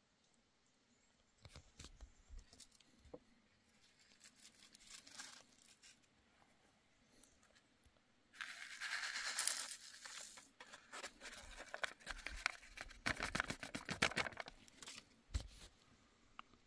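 Close handling noises: a few soft clicks, then a loud crinkling rustle about eight seconds in, followed by a run of scratchy clicks and rustles.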